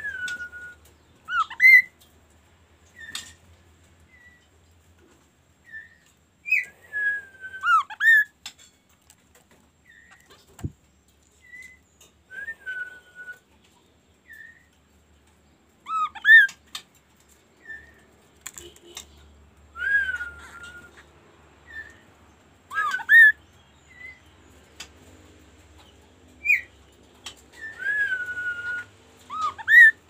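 Kaso-kaso songbird whistling in short clear phrases: a note that slides down and holds, and quick upward-sweeping notes, repeated every few seconds with pauses between.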